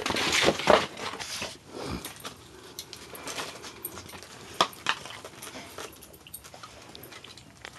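Dog moving about and playing: a burst of scuffling in the first second, then scattered clicks and knocks.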